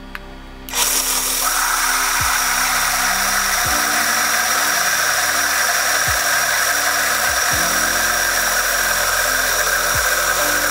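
Countertop blender running steadily, blending a liquid base of heavy cream and eggs; its motor starts about a second in with a steady high whine and cuts off at the end. Background music with a regular beat plays underneath.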